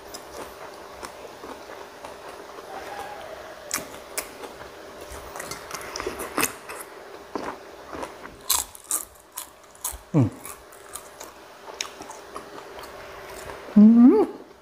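A man chewing and crunching mouthfuls of papaya salad and fried grasshoppers, with many short crisp clicks from the crunchy food. About ten seconds in a brief voiced sound falls in pitch, and near the end a short loud voiced sound rises in pitch.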